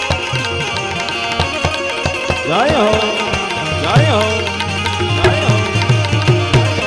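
Instrumental passage of Indian folk devotional music: tabla drumming with Indian banjo (bulbul tarang) and harmonium, with held tones underneath and quick repeated low drum strokes in the second half. A few sweeping notes slide up and back down in the middle.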